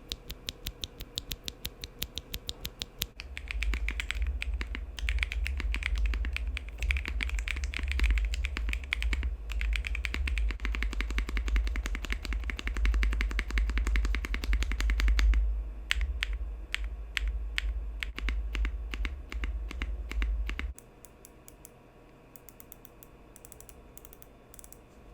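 Typing on a Leobog K81 mechanical keyboard with its light white linear switches clacking. A fast, even run of key presses opens, followed by about twelve seconds of dense typing with a low rumble beneath it. Near the end the keystrokes thin out and grow fainter.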